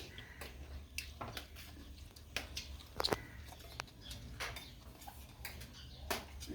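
Eating sounds: scattered soft clicks and smacks of chewing, with food being handled on a plate, the sharpest click about three seconds in.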